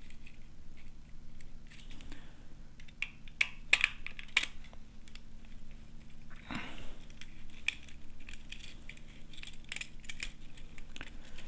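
Small clicks, taps and scrapes of a screwdriver and copper wire being worked onto the terminal screws of a plastic switch board, over a steady low hum.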